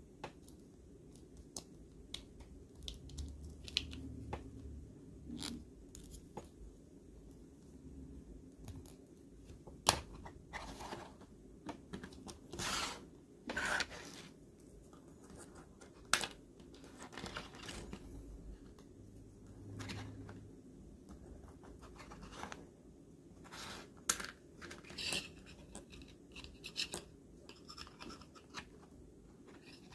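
Plastic action figures and their small plastic weapons being handled and fitted together: scattered clicks, taps and short scrapes of hard plastic, the sharpest click about ten seconds in.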